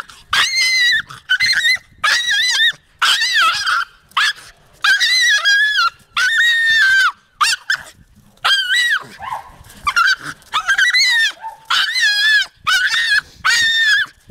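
Jagdterrier (German hunting terrier) yelping over and over while it jumps about in play. The calls are high-pitched, come about once a second, and each one rises and falls in pitch.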